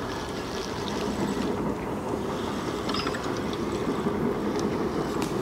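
Fixed-spool fishing reel being wound steadily, a continuous fine mechanical rattle from its gears, as a hooked bream is played in on a method feeder rod.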